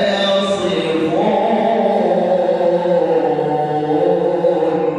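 A man reciting the Quran in melodic tajweed style, drawing out long held notes that glide up and down in pitch. The phrase ends near the end with a fading echo.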